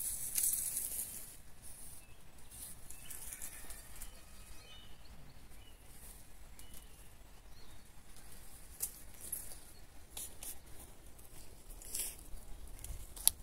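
Open-air garden ambience: a light, steady hiss with scattered small clicks and taps, the sharpest near the end, and a few faint bird chirps.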